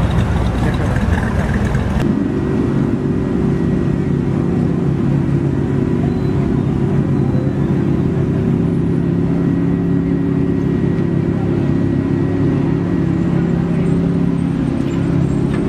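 Street traffic noise for about two seconds, then an abrupt change to a car engine idling steadily with a low, even note and a faint high whine.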